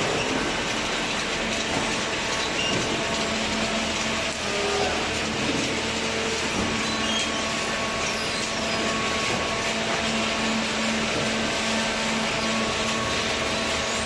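Cardboard baler and its belt feed conveyor running: a steady mechanical noise with a constant low hum.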